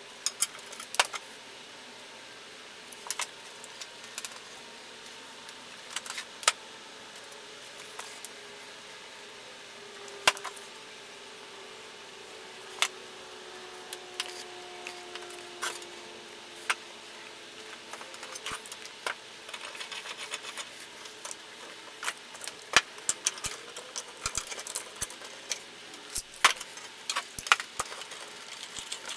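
Scattered light knocks and clicks of wooden blocks and a glue bottle handled on a wooden workbench. Near the end the clicks come thick and fast, with metal clinking as C-clamps with sliding T-handles are tightened onto the glued blocks.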